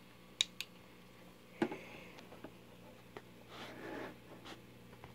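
A few short, sharp clicks in the first two seconds, then a soft rustle of handling near four seconds, over a low steady hum.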